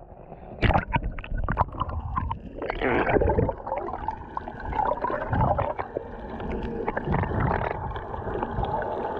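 Splashes as an action camera goes into the sea beside a boat. It is followed by muffled gurgling and swirling water heard through the submerged camera.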